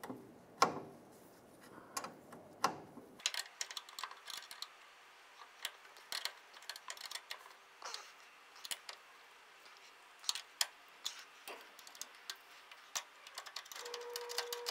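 Irregular metallic clicks and ticks of a wrench working a nut and bolt tight on an air helper spring bracket, the loudest a sharp click just under a second in. A faint steady tone sounds for about a second and a half near the end.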